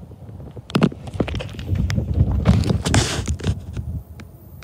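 Footsteps crunching on gravel ballast, an irregular run of sharp crunches that is heaviest in the middle, over a low rumble of wind or handling on the microphone.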